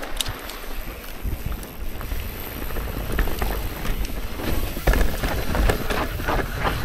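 Mountain bike rolling down a dry, loose dirt trail: tyres running over dirt and small rocks, with wind on the microphone and scattered clicks and knocks from the bike, which get busier and louder over the last two seconds.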